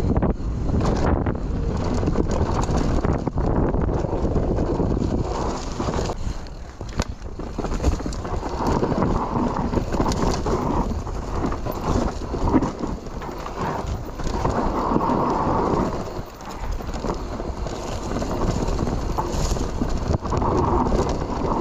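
Mountain bike running down a dry dirt trail: a continuous clatter and knocking of the bike over bumps, tyres on dirt, and wind rushing over the action camera's microphone.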